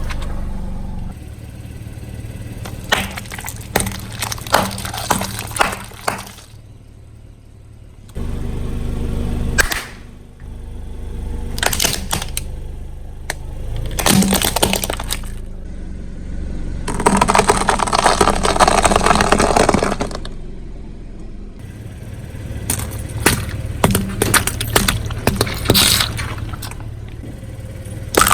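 Car tyre rolling slowly over objects and crushing them, with many sharp cracks and snaps over the low hum of the car's engine running. Partway through there is a hissing rush lasting about three seconds.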